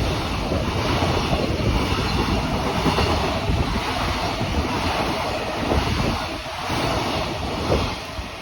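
Freight train hauled by an EF210 electric locomotive passing through a station without stopping: a steady rushing rumble of wheels on rails that eases off near the end.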